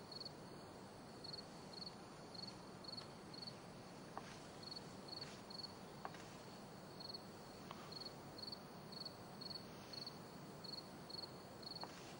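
Faint crickets chirping, a short high chirp repeated about three times a second in short runs, over a low background hiss.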